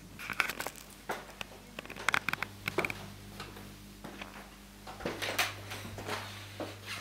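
Handling noise from a handheld camera being carried through a room: irregular clicks, taps and rustles, with a quick run of ticks a couple of seconds in, over a low steady hum that grows stronger partway through.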